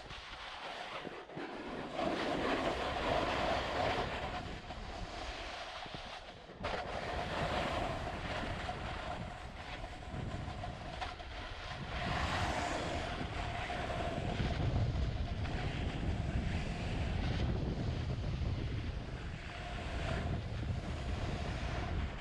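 Skiing or snowboarding gear sliding and scraping over packed snow on a run down a slope, with wind rushing over the microphone; a faint steady whine runs under the noise, which grows louder about two seconds in and again about twelve seconds in.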